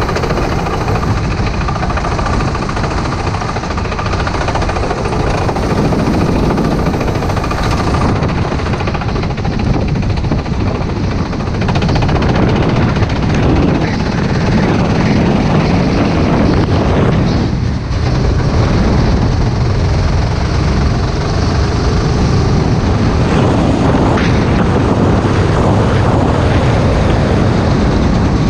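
Racing kart engine running hard at speed, heard from on board the kart, a dense steady noise that gets a little louder about twelve seconds in.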